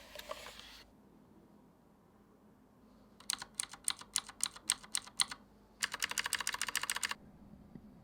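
Typing on a Razer BlackWidow X mechanical keyboard. First comes a string of about a dozen separate keystrokes, then a fast run of keys for just over a second, clattering close together.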